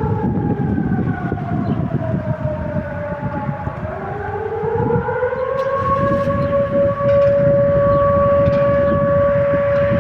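Civil defence sirens wailing in a test. One tone slides down over the first few seconds, then another rises about four seconds in and holds a steady pitch to the end.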